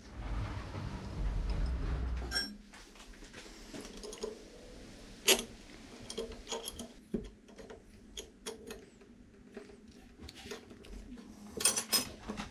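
Metal parts and tools clinking and tapping against each other as they are handled, with a sharp clink about five seconds in and a quick cluster near the end. A low rumbling noise fills the first two seconds.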